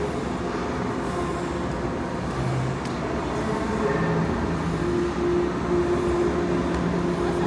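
Steady rumbling noise of a train platform beside a stationary steam locomotive, the Hogwarts Express replica, venting steam.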